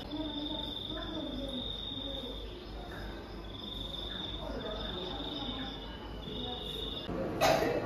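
A high, steady cricket-like trill that comes in stretches of about a second with short breaks, over a low murmur of people talking. A sharp knock near the end is the loudest sound.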